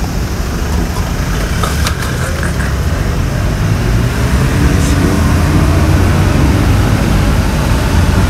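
A car engine idling close by: a loud, steady low rumble that swells slightly about halfway through.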